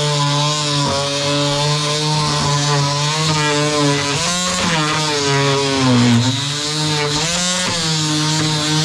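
Electric power tool motor running steadily, its pitch sagging about halfway through and climbing back up, as when the tool is pressed harder into the work.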